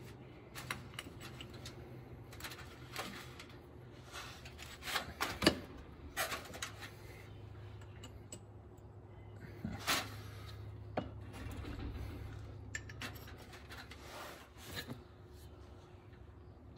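Metal handling sounds: light clinks, taps and scraping as a transfer punch is slid into a driveshaft yoke fitted on the cut transfer-case output shaft. There are scattered short clicks, the sharpest about five and a half seconds in.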